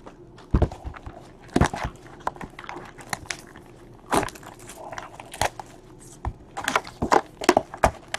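Foil trading card packs being pulled from a cardboard hobby box and set down, the wrappers crinkling, with irregular sharp knocks as packs and box are handled.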